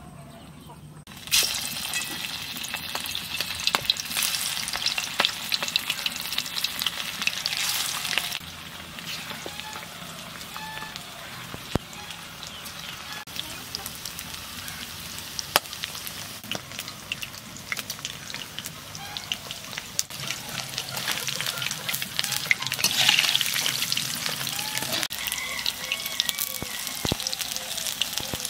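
Batter-coated chicken pakoda pieces deep-frying in hot oil in a metal kadai, a dense sizzling crackle. It starts suddenly about a second in as the battered pieces hit the oil, and flares louder a few times.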